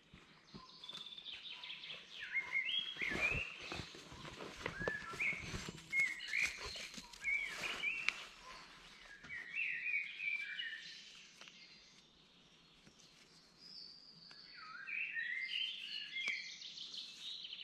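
Woodland birds chirping and singing throughout. From about two to nine seconds in there are louder rustles, scuffs and knocks as a canvas tarp is handled and spread out on dry leaf litter.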